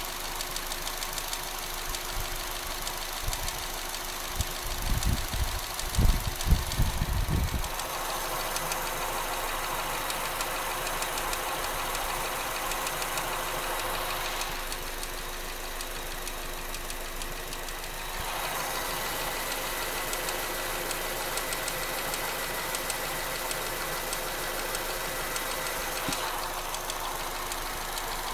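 2014 Astra GTC engine running steadily at idle with a fast, light ticking noise. A few low bumps come in the first several seconds.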